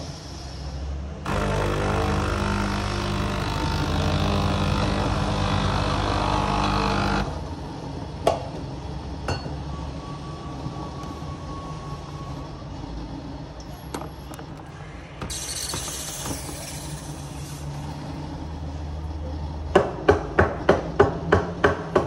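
Breville Barista Express steam wand purging: a loud, steady hiss of steam for about six seconds, then a second, shorter burst of hiss later on. Near the end comes a quick run of about nine sharp clicks.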